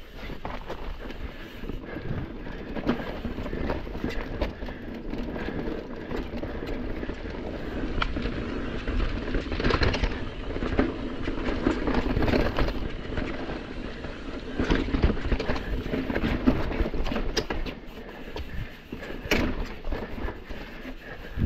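Mountain bike riding fast down a rocky, rooty forest singletrack: tyres rolling and the bike rattling and clattering over rocks, a continuous stream of knocks and clicks.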